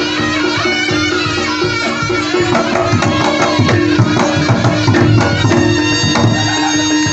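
Jaranan Kediri ensemble music: a nasal reed-pipe (slompret) melody over kendang drumming and a steady held drone, with the drum strikes thickening in the middle.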